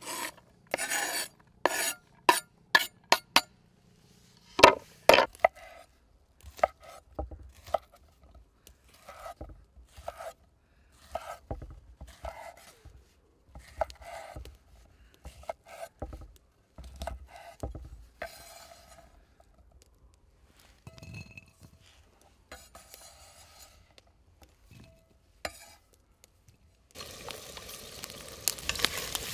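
Metal cooking utensils against cookware: a run of sharp clinks, then regular scraping and stirring strokes about once a second. Near the end a steady sizzle of food frying in a hot pan starts.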